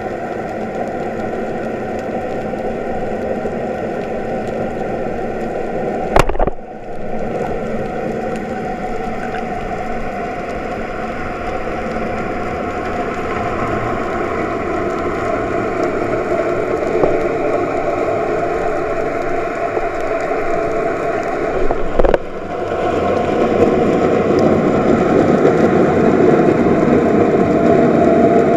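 Muffled underwater noise picked up through a camera's waterproof housing, a steady hum. A sharp snap about six seconds in fits the band-powered speargun being fired, and a second sharp click comes about 22 seconds in.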